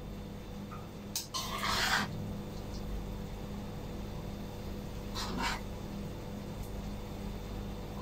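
A spatula scraping and stirring bean sprouts and tofu in a wok. There are a few short scrapes, the loudest about one and a half seconds in and another about five seconds in, over a steady low hum.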